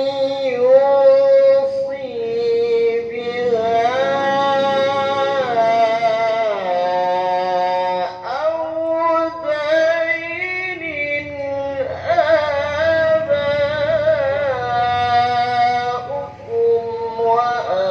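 A man reciting the Qur'an into a microphone in a very high, melodic voice: long held notes with ornamented slides between pitches, broken by short breaths about eight and sixteen seconds in.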